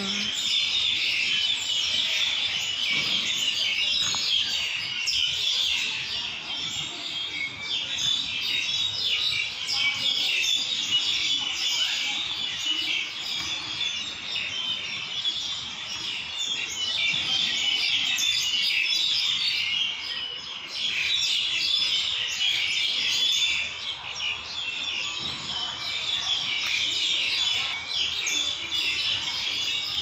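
A dense chorus of many birds chirping and twittering nonstop in the trees, loud and unbroken.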